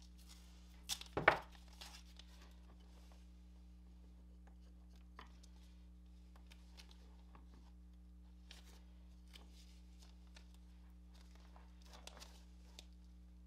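Painter's tape ripped off the roll once, about a second in, then faint small rustles and clicks as the tape is pressed around a test light's cable, over a steady low hum.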